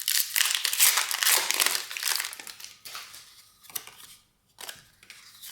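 Foil wrapper of a Pokémon card booster pack being torn open and crinkled, a dense crackle for the first two seconds or so, then scattered rustles and small clicks.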